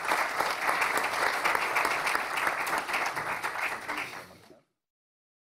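Audience applauding, many hands clapping together; the clapping thins out about four seconds in, and then the sound cuts off abruptly to silence.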